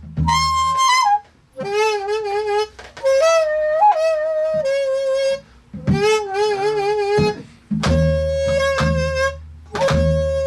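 Daegeum, the Korean bamboo transverse flute, played solo in short phrases of held notes separated by brief breaths. Several notes carry a wide, slow wavering of pitch.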